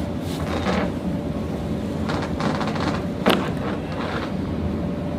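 A single sharp crack about three seconds in: a joint popping under a chiropractic adjustment. It sits over a steady low rumble and a little soft rustling of movement.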